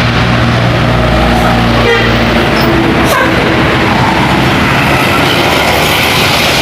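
Bus engine and road noise, loud and steady, as a tour bus passes close by, with a low engine drone for the first two seconds.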